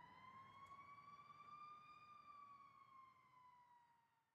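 Faint siren wailing, its pitch sliding slowly up and then back down, fading out near the end.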